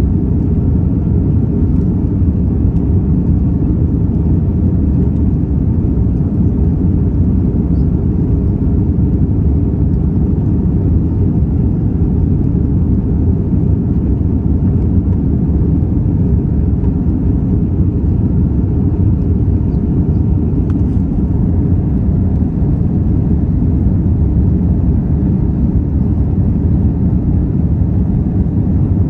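Airliner cabin noise at a window seat over the wing: the steady, low rumble of the jet engines and rushing air during the climb after takeoff.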